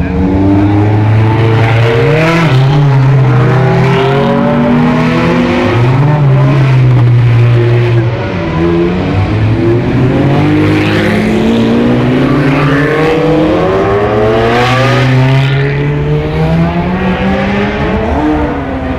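A line of Ferrari sports cars, among them an F430, a Testarossa and a 458 Italia, driving past one after another, several engines running at once. Their notes rise in pitch as each car accelerates away, with a brief lull about eight seconds in.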